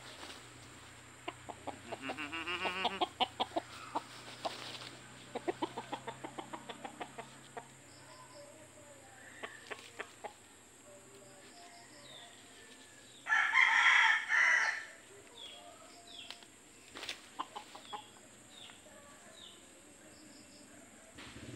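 A native rooster giving rapid strings of clucks and squawks as it is caught and handled, with one loud, harsh call about two-thirds of the way in and a few faint clucks after it.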